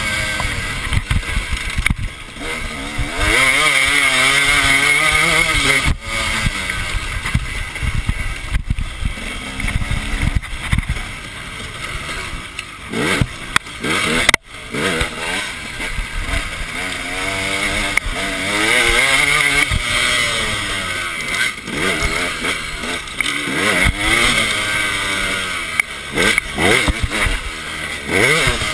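2009 KTM 250 EXC two-stroke dirt bike engine under riding load, revving up and dropping back again and again as the throttle is worked and the gears change. The revs cut briefly several times, sharply once about halfway through.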